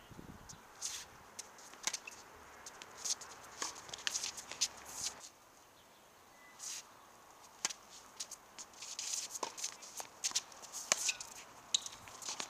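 Sounds of tennis play on a hard court: scattered sharp clicks and scuffs of players' shoes and ball strikes, bunched in two busy stretches. The background hiss drops suddenly about five seconds in.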